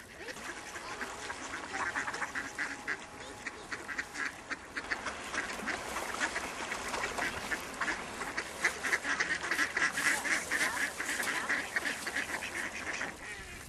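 A flock of waterbirds, mallards among them, quacking and calling: many short calls overlapping without a break, getting busier after the first few seconds.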